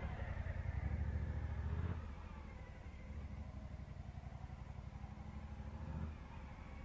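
Large motorcycle's engine running at low speed through tight slow-speed turns, loudest as it passes close in the first two seconds, then dropping back as it moves away, with a small rise in throttle near the end.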